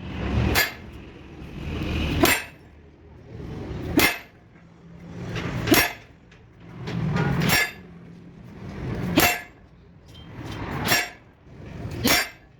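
Steady, evenly paced hammer blows on metal, a sharp strike about every second and a half to two seconds, each one preceded by a swell of rising noise.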